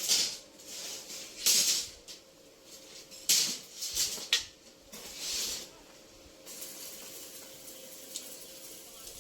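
Repeated short bursts of hissing spray, five loud ones over the first six seconds, then a fainter steady hiss.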